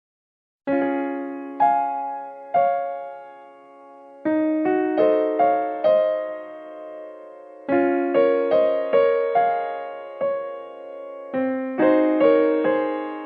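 Background piano music: a slow, gentle melody of struck notes that ring and fade, starting about a second in after a moment of silence.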